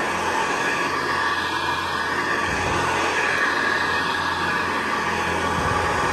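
Hoover Convertible Model 704 upright vacuum cleaner running steadily while it is pushed over carpet, its brush roll driven by a freshly fitted belt.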